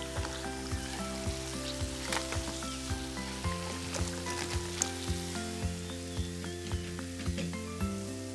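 Hot cooking oil sizzling and crackling around battered banana fritters as they are lifted out of the wok with a wire strainer. Background music plays throughout, with a steady beat of about two ticks a second.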